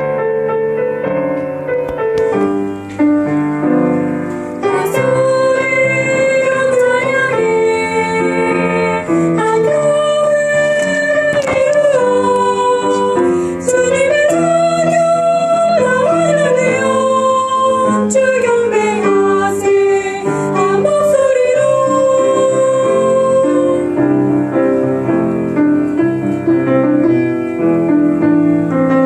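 Soprano voice singing a slow Korean worship song with vibrato on long held notes, over piano accompaniment.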